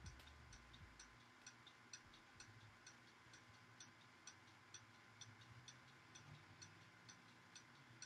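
Near silence: room tone with a clock ticking faintly and evenly, about two ticks a second.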